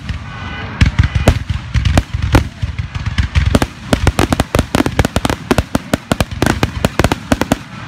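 Aerial firework shells bursting in rapid succession: a dense volley of sharp bangs and crackles, coming thickest in the second half.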